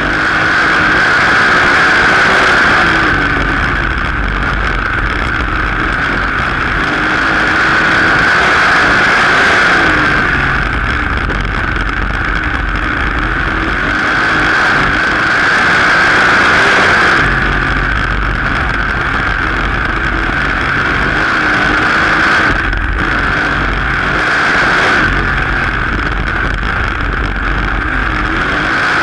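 Open-wheel dirt-track race car's engine running hard at race pace, heard through the in-car camera. It swells and eases about every six or seven seconds as the car laps the track.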